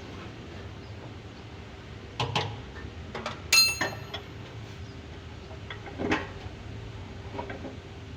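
Metal parts being handled on a workbench: a few knocks, and one bright ringing metallic clink about three and a half seconds in, over a steady low hum.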